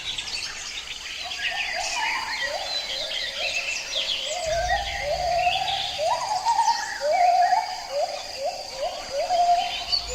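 Forest birds chirping in chorus, with one call of short rising notes repeated about twice a second over a steady high insect drone.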